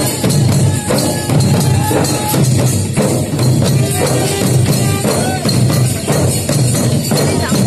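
Live folk drumming: a troupe of dancers beating large shoulder-slung barrel drums with sticks in a steady, driving rhythm, with a wavering melody line above the drums.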